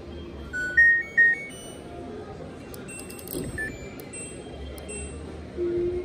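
Electronic beep tune from an LG washing machine's control panel: a short run of stepped tones going up and down about a second in, then a single beep with a few button clicks around three and a half seconds in. A steady low tone sets in near the end.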